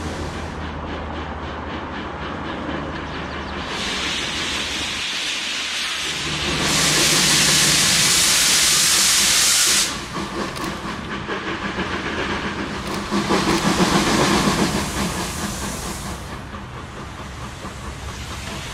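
Steam locomotive 477.043 'Papoušek', a ČSD class 477.0 tank engine, pulling away. A loud, steady hiss of steam cuts off suddenly about ten seconds in. It gives way to rapid, pulsing exhaust beats under more hissing steam, which ease off near the end.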